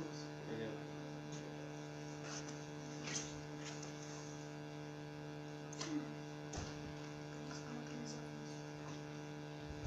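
Steady electrical mains hum, with a few faint clicks and rustles about three and six seconds in.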